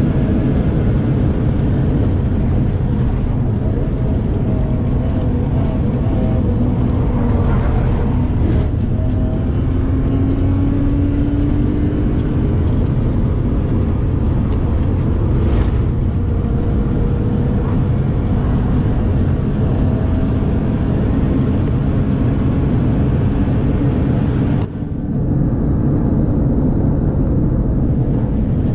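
Stroked 3.0-litre BMW inline-six (S50B30 US crank and pistons in an M50B25 iron block) running hard in a BMW E36 on track, heard from inside the cabin, its revs rising and falling through the gears. There is a brief dip in level near the end. The engine is one the driver calls very laggy and heavy to rev.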